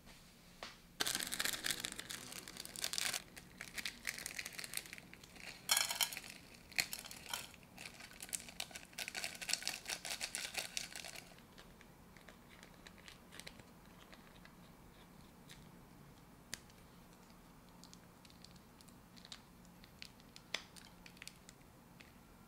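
Plastic food sachets being torn open and crinkled, loud and busy for about ten seconds. After that only faint scattered ticks and rustles as the contents are shaken and squeezed out into a non-stick pot.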